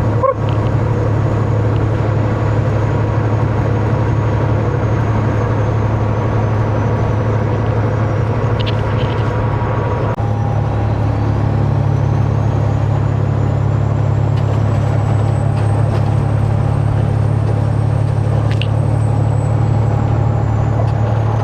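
Diesel engine of a Peterbilt 389 glider semi-truck heard from inside the cab while driving on the highway, a steady low drone with road noise. About halfway through the engine note briefly breaks and changes, and a faint high whine then rises and slowly eases off.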